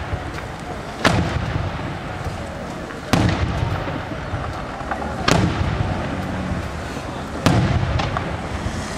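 Bruscella Fireworks' daytime aerial shells bursting overhead: four loud bangs about two seconds apart, each followed by a low rumbling echo.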